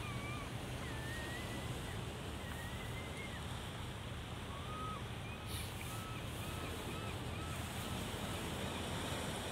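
Steady wash of small waves on a rocky shore with wind on the microphone. A few thin whistled calls come through, with a run of short repeated notes about halfway through.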